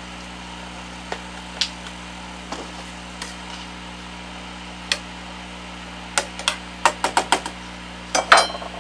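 Handling noise as a camera is carried over to a pot on the stove: scattered light clicks and knocks, a quick run of clicks late on, and a short metallic clatter near the end, over a steady electrical hum.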